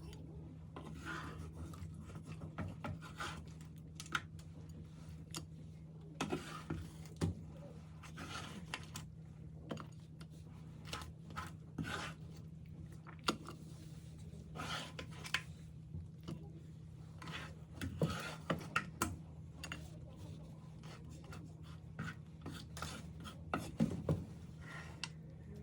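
Irregular clicks and short scraping sounds of food being prepared by hand, over a steady low hum.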